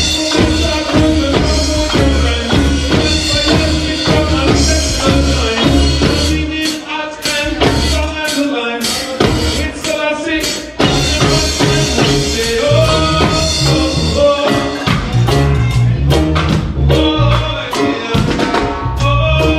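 Roots reggae band playing live: a heavy, deep bass line under a steady drum-kit beat, with melodic instruments and some singing over the top.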